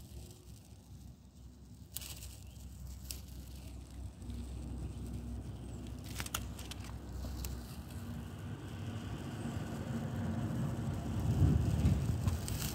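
Masking tape peeling off a freshly spray-painted car body panel, with faint crackling and a few sharp snaps as it lifts. Underneath, a low engine rumble with a steady hum grows louder toward the end.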